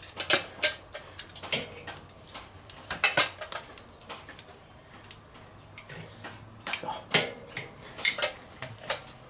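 Metal grill tongs clicking and scraping against the steel cooking grate of a charcoal kettle grill while turning bratwurst, in scattered clusters of sharp clicks.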